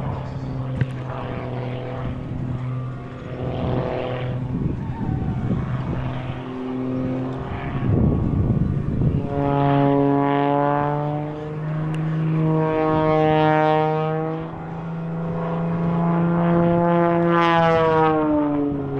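Aircraft engines at an air show, running steadily and then passing through several times. Each pass rises and falls in pitch, and the last one drops away near the end.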